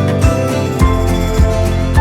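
Background music with a steady beat, a low pulse a little under twice a second, under held notes.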